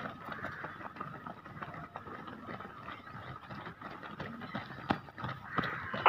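Footsteps of many marathon runners on an asphalt road as they pass close by: irregular, overlapping steps over steady background noise.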